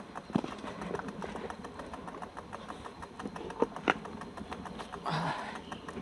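Mountain bike clicking and rattling on a dirt trail: irregular sharp clicks and knocks, with a short hiss about five seconds in.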